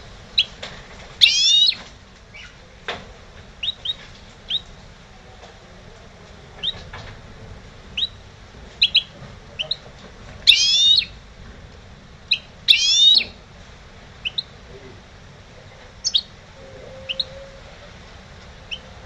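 Goldfinch × canary hybrid (mule) singing: scattered short, high chirps, broken by three louder, rapid buzzy phrases, about a second in, near the middle, and again two seconds later.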